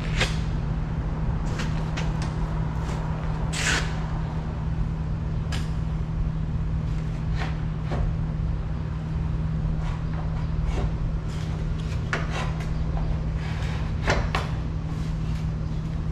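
Irregular clicks and knocks of parts and tools being handled during a car's cooling-fan replacement, over a steady low hum.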